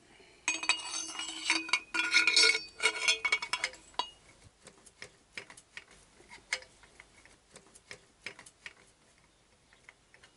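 Steel motorcycle exhaust header pipes clinking and ringing against each other as they are handled, a dense run of metal-on-metal clinks over the first few seconds. After that come scattered light taps and clicks as a pipe is offered up to the engine's exhaust port.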